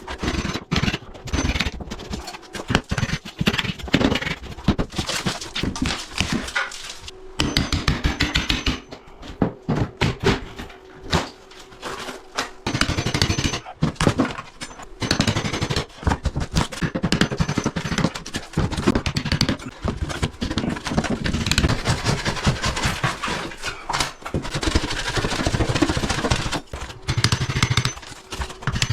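Plasterboard ceiling being cut out and pulled down: a busy run of sawing, scraping and knocking on the board, with short pauses.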